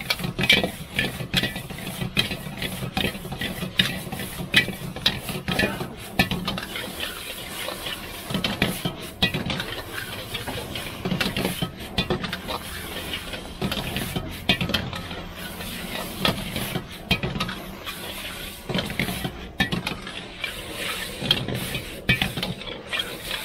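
Metal spatula clanking and scraping in a wok as chowmein is tossed and stir-fried, in quick irregular strikes over a steady low hum.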